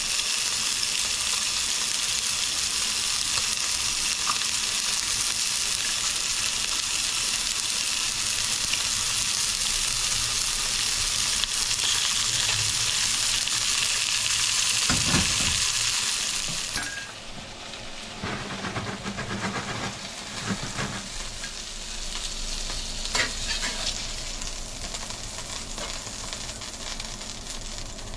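Halibut fillets sizzling in garlic butter in a hot cast-iron skillet, a steady hiss that cuts off sharply a little over halfway through. After it, a few light knocks and clinks of dishes.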